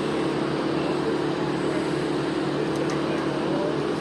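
Engine of heavy machinery running steadily at a tree-removal site, a constant droning hum.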